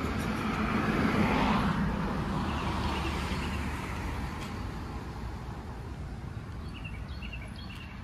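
A car passing on the road, swelling to its loudest about a second and a half in and then slowly fading away.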